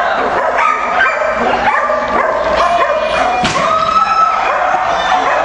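Many flyball dogs barking and yipping at once: a dense, overlapping din of short barks with no break.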